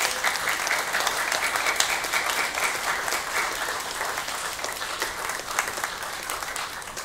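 Congregation applauding, many hands clapping together, gradually dying down toward the end.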